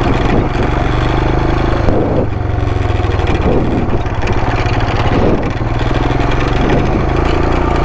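Royal Enfield Himalayan's 411 cc single-cylinder engine running at trail pace, its revs rising and falling several times with the throttle.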